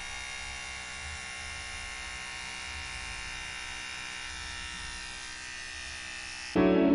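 Electric hair clipper buzzing steadily as it shaves a head close to the scalp. Music cuts in near the end.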